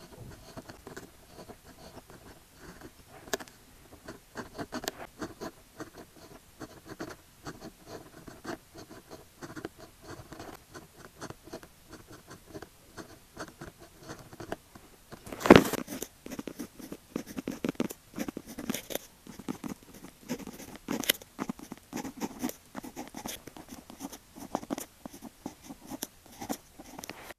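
Pen writing Chinese characters on paper: a steady run of short scratching strokes. A brief loud noise comes about halfway through, after which the strokes sound louder.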